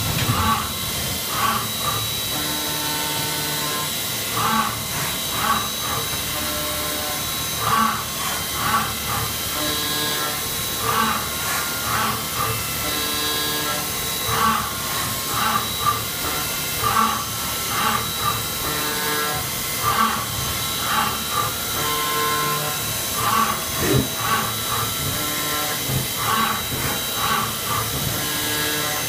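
CNC vertical machining centre milling aluminium: a steady high whine over a hiss, with a short pulse repeating about once a second.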